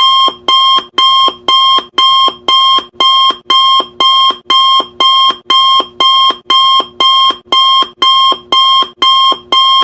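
Electronic countdown-timer alarm beeping in a steady, even loop, about two sharp, high beeps a second.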